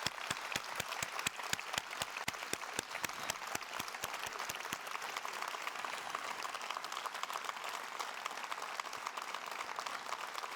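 Audience applauding: a round of clapping with a few loud, distinct claps close by in the first few seconds, settling into a steady, dense applause.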